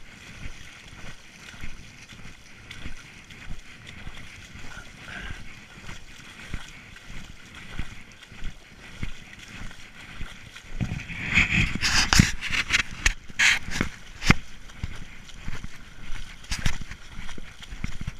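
Shallow river water lapping and sloshing close by, with a louder spell of splashing and sharp clicks about eleven seconds in that lasts three or four seconds.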